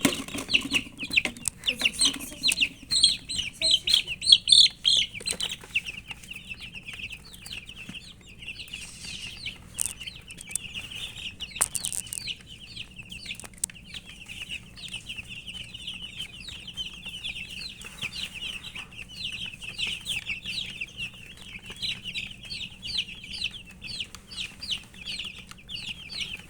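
A brood of baby chicks peeping continuously, many high short cheeps overlapping, loudest and busiest in the first few seconds; the chirping is the chicks' call of thirst for drinking water.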